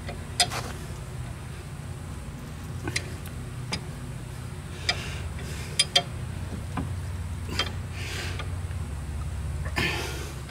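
A steel C-clamp screw being turned by hand against a brake caliper to push the pistons back in on a seized front brake, giving scattered metallic clicks and knocks. A steady low hum runs underneath.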